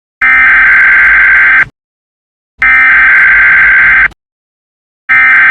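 Emergency Alert System SAME header: three identical bursts of data tone, each about a second and a half long with about a second of silence between them, the third starting near the end. These bursts mark the start of an emergency alert broadcast.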